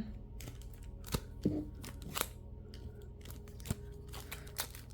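Soft clicks and light rustles of trading cards being handled: a few separate sharp ticks spread over a few seconds.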